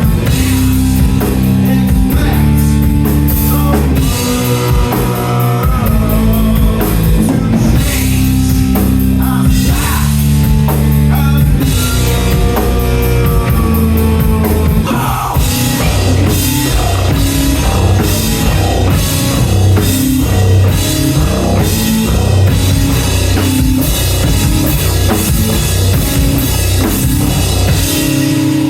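Loud rock music with a driving drum kit and bass line; the arrangement changes about halfway through.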